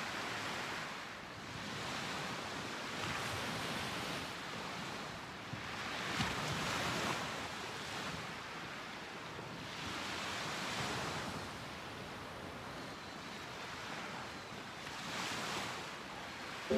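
Small waves washing onto a sandy beach, the surf swelling and easing every few seconds.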